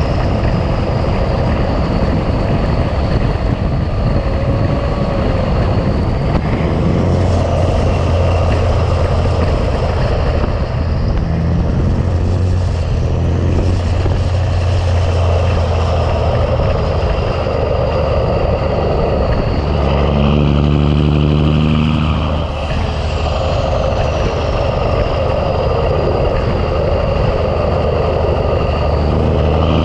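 Big Cam Cummins inline-six diesel in a 1986 Ford LT9000 semi, running under load while hauling a truck on a trailer. The revs climb about two-thirds of the way through, dip briefly as it shifts gear, then pull again and climb once more near the end.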